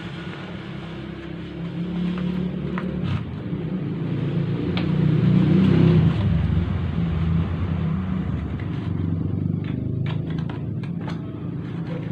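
A motor vehicle's engine rumbling, growing louder to a peak about halfway through and then fading. Light clicks and taps of small cardboard cubes being handled and set into a cardboard box, more of them near the end.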